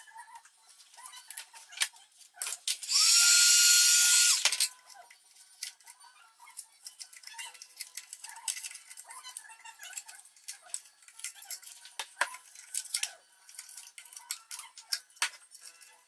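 Scissors snipping and clicking as plastic moulding material is cut away from a cast carbon-fibre part, with handling scrapes. About three seconds in, a power tool runs in one loud burst of just under two seconds, with a steady whine.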